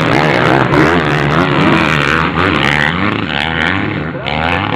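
Motocross bikes racing past, their engines revving up and down as the riders work the throttle through the turns, several engines overlapping.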